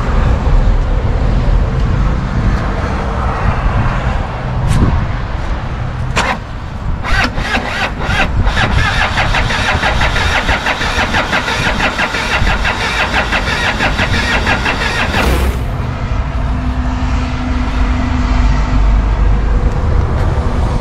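1989 Renault Espace's 2.1 turbodiesel engine being started with difficulty and running. A dense, rapid clatter sets in about seven seconds in and stops suddenly about eight seconds later. The mechanics suspect a blown head gasket in this engine.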